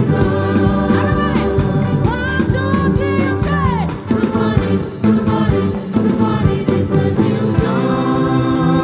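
Congregational gospel singing over a live band with a steady beat, voices sliding between held notes.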